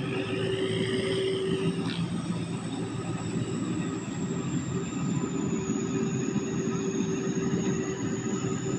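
Sakpattana SS-300 rice combine harvester working in the field, its engine running at a steady drone with a thin high whine above it.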